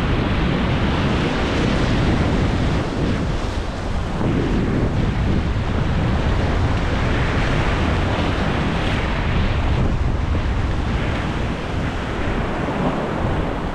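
Ocean surf surging and washing over a flat rock ledge, a steady rushing wash, with wind buffeting the microphone.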